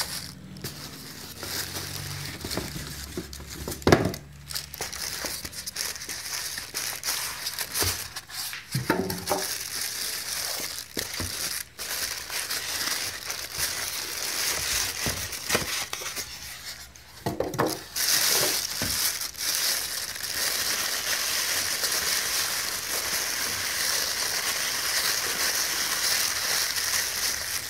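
Plastic bags crinkling and styrofoam packing blocks rubbing as an electronics unit is unpacked from its box, with a sharp knock about four seconds in. The crinkling gets steadier and louder from about 17 seconds in.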